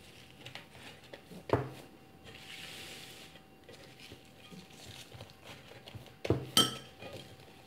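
Hands handling thin warqa pastry sheets in a round metal baking pan: soft rustling and pressing, with a sharp knock about a second and a half in and two more close together near the end.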